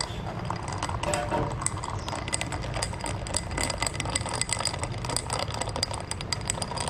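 Metal spoon stirring iced coffee in a glass, clinking and rattling against the glass and the ice cubes in quick, irregular clicks.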